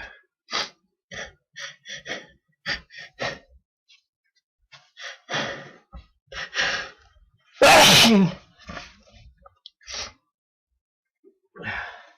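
A person's sneeze build-up: a run of short, catching gasps, then two longer drawn-in breaths, then one loud sneeze about eight seconds in, followed by a couple of short breaths.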